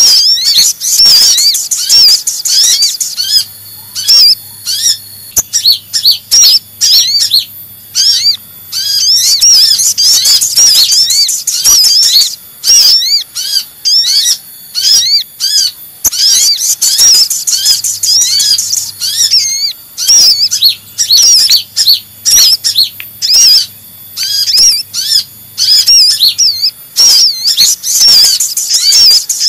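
Rapid, high-pitched chirping and twittering in quick busy bursts: recorded calls of Van Hasselt's (purple-throated) sunbird mixed with little spiderhunter calls. It is a looped lure track used to draw sunbirds and other small birds in for trapping.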